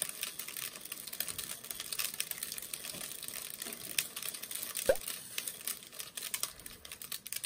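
Grains of rice trickling and pattering inside a plastic water bottle, a dense run of small ticks, with one louder click about five seconds in.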